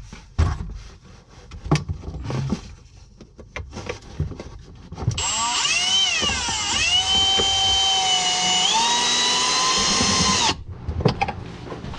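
Scattered clicks and knocks of handling, then an electric drill driving a screw for about five seconds: the motor whine drops in pitch as the screw bites, holds steady, steps up briefly and cuts off.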